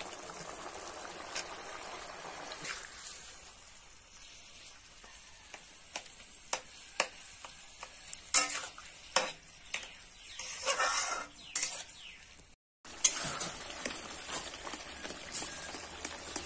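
Tomato slices sizzling in hot oil in an aluminium kadai, then a metal spatula scraping and clicking against the pan as the taro and tomatoes are stirred over the frying. The sound cuts out for a moment about two-thirds through.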